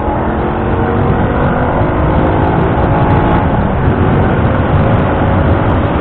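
Suzuki Shogun Pro 125 single-cylinder four-stroke motorcycle engine running under way, its note climbing as the bike accelerates over the first few seconds, under a steady rush of wind and road noise.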